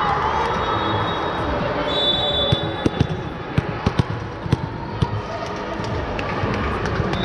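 A volleyball being struck and bouncing: a cluster of about eight sharp knocks over roughly two and a half seconds, over steady background noise.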